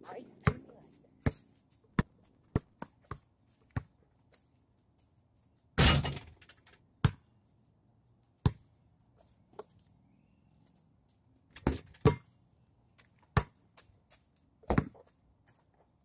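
A series of sharp knocks and thuds at uneven intervals, about a dozen in all, with one louder, longer clatter about six seconds in.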